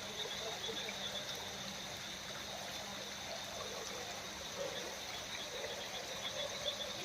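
Rainwater trickling and running steadily.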